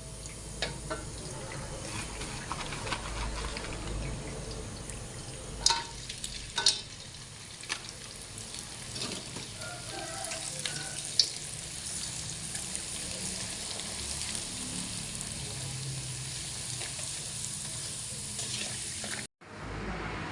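Food sizzling as it fries in a pan while it is stirred, with a few sharp clinks of the utensil against the pan. The sizzle cuts off abruptly near the end.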